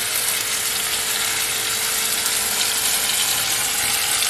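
Tomato pieces and spiced ginger-garlic masala sizzling in hot oil in a metal kadai: a steady frying hiss, with a faint steady hum beneath it.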